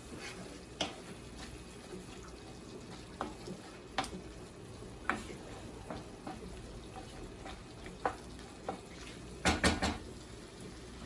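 A cooking utensil knocking and scraping against a pan as a tomato-and-spice masala base is stirred: scattered single knocks, then a quick run of louder knocks near the end.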